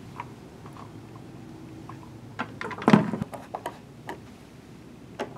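Handling noise as a clear prismatic lens is fitted back onto a parking-garage light fixture: light clicks and scrapes, a cluster of knocks with one loud sharp knock about three seconds in as the lens seats on the housing, then faint clicks of a screwdriver on a rim screw.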